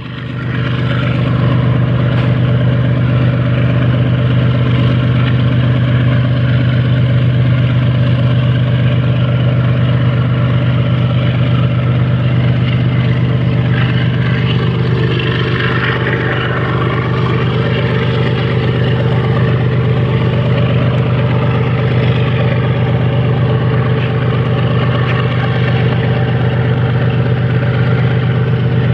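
The GE GEVO 12-cylinder diesel engine of an ES43BBi freight locomotive running loud at a steady pitch. It is a deep, even drone that swells in over the first second and holds without change in speed.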